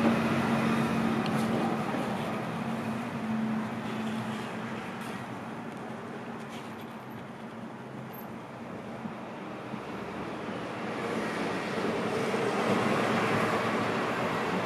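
Steady rushing noise that eases off in the middle and swells again near the end, with a low steady hum in the first few seconds.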